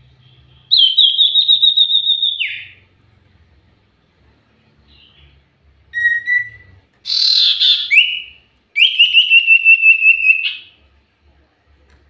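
Common iora (cipoh) singing: two long, rapid trills of repeated high whistled notes, about seven a second, each ending in a sliding note. Between the trills come a short whistle and a harsh chattering burst.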